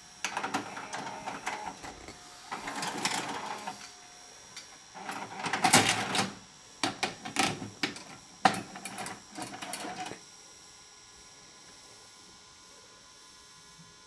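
VCR tape-transport mechanism whirring and clattering in several uneven spells, loudest about six seconds in, as the tape is rewound. It stops about ten seconds in, leaving a steady low hum.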